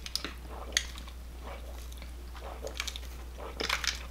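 A person sipping a soda through a straw from a paper cup, with quiet mouth clicks and swallows. A sharper click comes about a second in and a louder cluster of mouth noises near the end.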